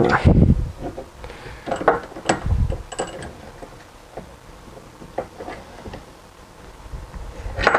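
Small bench vise being tightened on a piece of brass sheet: scattered metallic clinks and clicks from the vise handle and screw, with a couple of dull knocks, the loudest near the start and about two and a half seconds in.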